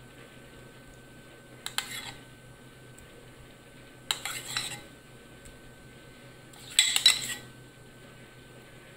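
Metal spoon scraping and clinking against a bowl three times, in short clattering bursts, as thick tomato sauce is scooped out and dolloped.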